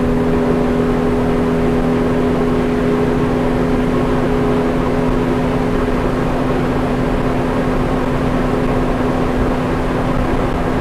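Mercury F200 200-hp outboard running near full throttle as the boat nears top speed, a steady hum of unchanging pitch over the rush of wind and water.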